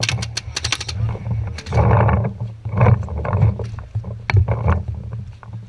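Paintball marker firing a fast burst of shots, about a dozen a second, near the start, then scattered single shots. Underneath are low rumbling and rustling as the player moves over leaf litter.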